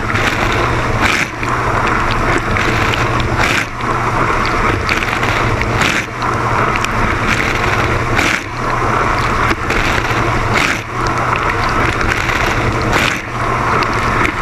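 Dishwasher running its wash cycle, water spraying and sloshing inside the tub over a steady pump hum, with a regular swish from the rotating spray arm about every second and a quarter.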